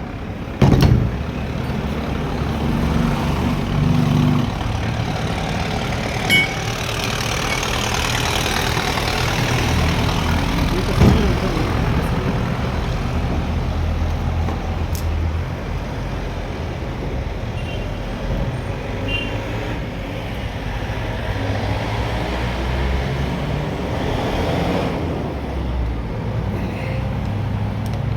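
Road traffic noise: vehicle engines running and passing, rising and falling twice, with a few sharp clicks or knocks.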